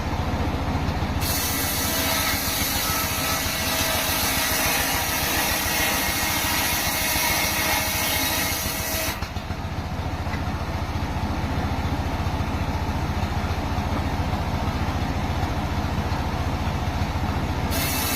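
Circular saw running steadily with a low motor hum; a harsh, hissing high sound rides over it from about a second in until about nine seconds, then drops away, and returns near the end.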